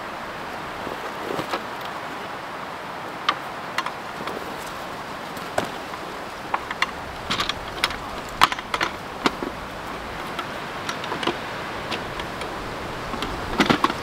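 Folding bamboo camp table being taken out of its zippered carry bag and unfolded: scattered clicks and clacks of the wooden slats and metal hinges, thickest around the middle and again near the end, over a steady rush of wind.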